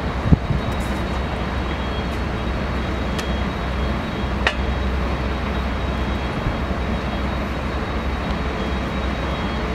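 Steady low rumble of jet aircraft engines across the airport, with two faint clicks about three and four and a half seconds in.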